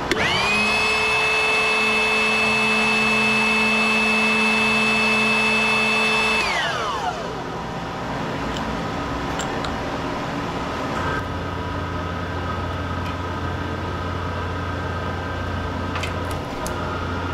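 A power tool's electric motor starts and spins up to a steady whine, runs for about six seconds, then winds down with falling pitch. A quieter steady machine hum carries on after it, with a higher tone joining about eleven seconds in.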